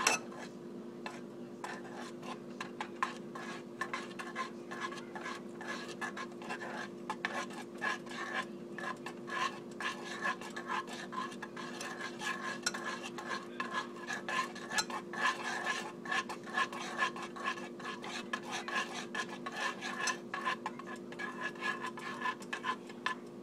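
A thin metal utensil stirring warming honey in a saucepan on the stove, clinking and scraping against the pan many times a second, with a steady low hum underneath.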